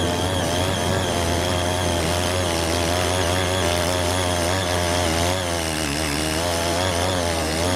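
A CY80 mini tiller's 78.5 cc air-cooled two-stroke petrol engine runs steadily as it tills soil. Its pitch wavers slightly up and down under the load.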